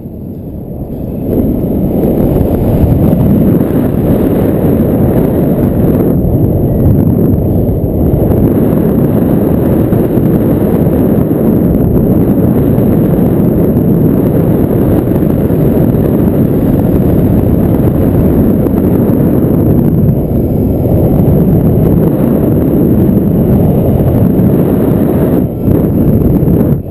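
Wind buffeting an action camera's microphone in paraglider flight through strong, turbulent wind: a loud, steady low rumble of rushing air, with a brief lull about a second in.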